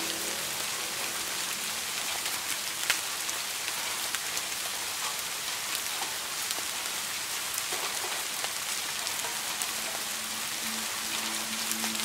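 Steady rain with many individual drops ticking through the hiss, one sharper drop about three seconds in. Soft music comes back in near the end.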